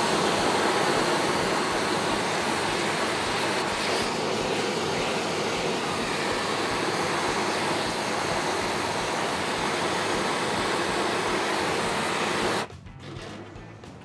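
Handheld gas torch running with a steady hiss, its flame played on the underside of a frying pan to heat the pan fast. It cuts off suddenly near the end.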